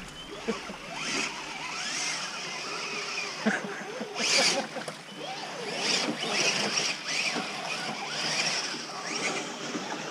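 Radio-controlled crawler trucks driving through a shallow rocky stream: small electric motors and gears running, with water splashing and running around them, and a louder noisy burst about four seconds in.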